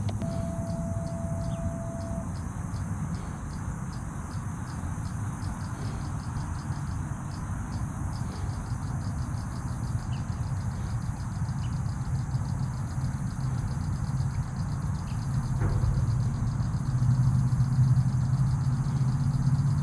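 A motor engine running steadily with a low hum, getting louder in the last few seconds, over insects calling in a fast, even pulse.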